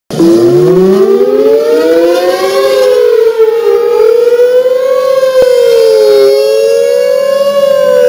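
Outdoor tornado warning sirens winding up from silence just after the start, then sounding together: one holds a steady wail while the other swings up and down in pitch every two to three seconds.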